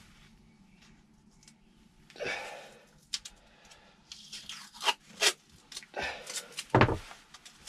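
Masking tape being pulled off its roll and torn, in several short rips, the loudest near the end.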